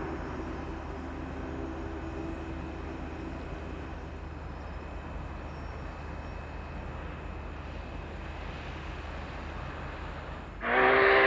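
Union Pacific 844 steam locomotive's deep whistle echoing back off the mountain basin walls and dying away over the first few seconds, leaving a steady low rumble, until the next whistle blast starts sharply near the end.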